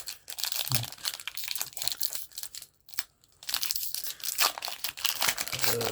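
A Pokémon booster pack's foil wrapper crinkling and tearing open, a run of rapid crackles with a short pause about halfway through.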